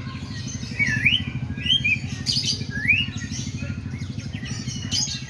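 White-rumped shama singing its imitation of a sooty-headed bulbul: a run of short, hooked whistled notes that dip and then rise, repeated about once a second, over a steady low hum.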